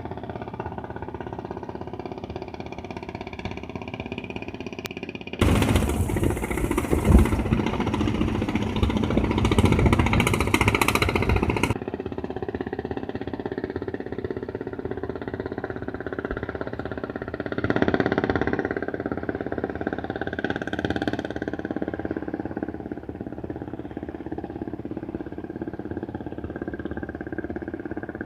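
Engines of traditional fishing boats running steadily as the boats pass, swelling briefly about eighteen seconds in. A loud rushing noise covers them from about five to twelve seconds in, starting and stopping abruptly.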